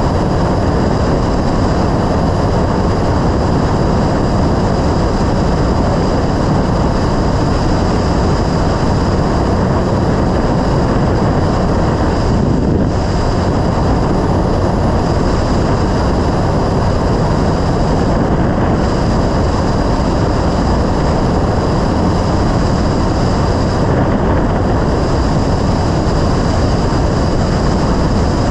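Yamaha Road Star XV1600's air-cooled V-twin running at a steady cruise, under a dense, even rush of riding noise.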